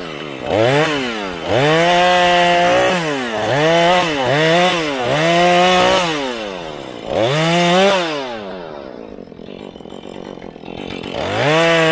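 Husqvarna 435 two-stroke chainsaw revved to full throttle and let off again and again, about six short bursts in quick succession. It drops back to a quieter idle for a few seconds, then revs up once more near the end.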